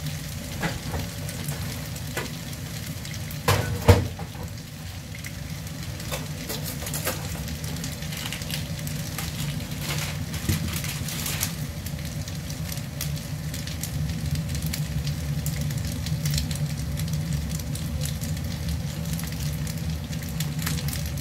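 Pasta and vegetables sizzling steadily in a frying pan on the burner, with two sharp knocks about four seconds in.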